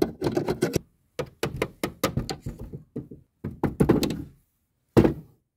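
Quick, irregular knocking and clattering of a plastic toy figure on a dollhouse floor, with one louder knock near the end.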